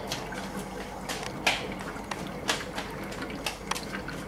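Wood gas bubbling through the water in a jar bubbler: irregular pops and gurgles, a few each second, with a louder pop about a second and a half in, over a low steady hum. The bubbler catches the water from the gas driven off the heated wood.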